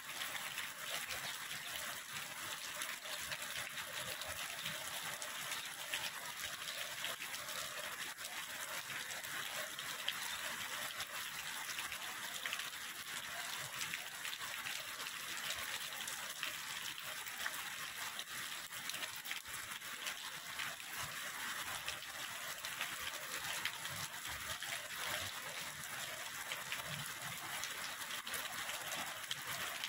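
Heavy rain falling steadily, a dense hiss of drops, over the rushing water of a rain-swollen canal.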